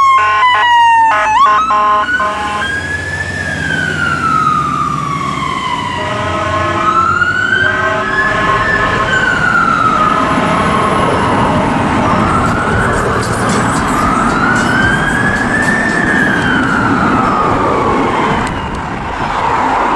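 Fire engine siren sounding a wail that sweeps slowly up and down, with short pulsing blasts of the bullhorn near the start and again about seven seconds in, from a Scania turntable ladder appliance pulling away on an emergency call.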